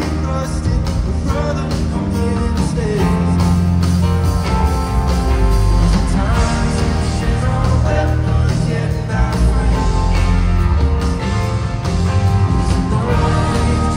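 Live rock band playing: electric guitar, bass, drums and keyboards, loud and continuous, heard from within the crowd.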